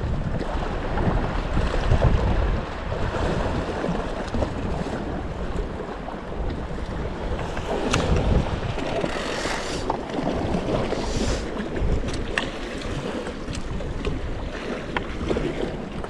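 Sea wind buffeting the microphone over the wash of swell against the rocks, with a few small clicks.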